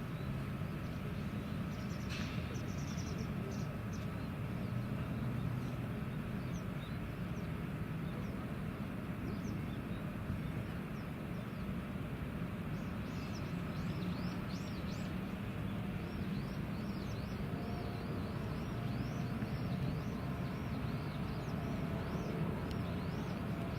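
Steady low outdoor rumble with small birds chirping; the chirps grow thicker from about halfway through.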